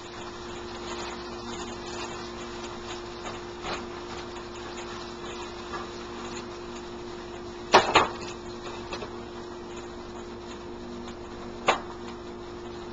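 Hash browns sizzling in a frying pan on an electric stove, over a steady low hum. Two sharp knocks close together about eight seconds in and another near the end.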